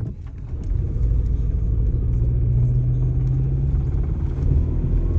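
2004 Toyota Corolla's four-cylinder engine running under way, heard from inside the car. It is a low rumble that grows louder about a second in, with a rough knocking sound the driver hears as the engine shaking as if it is about to die.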